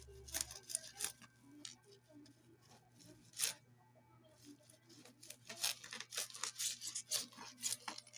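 Parcel packaging being torn and cut open: a series of sharp crackling rips and rustles, with one louder rip about three and a half seconds in, then a faster, louder run of rips in the last three seconds.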